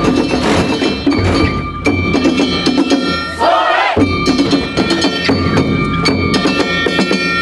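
Festival percussion from the boat float: drum beats and clanging metal bells struck in a steady rhythm. A little past three seconds in, the carriers shout together.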